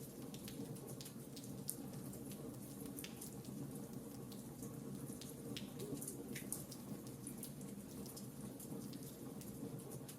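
Wood fire crackling: scattered sharp pops and snaps at irregular intervals over a steady low background of burning.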